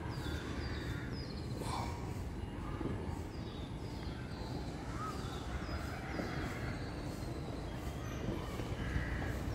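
Crows cawing and small birds chirping again and again, over a steady low rumble.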